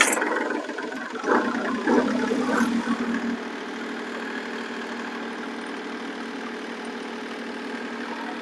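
Kubota 33-horsepower compact diesel tractor engine running just after start-up. It is louder and uneven for about the first three seconds, then settles into a steady run.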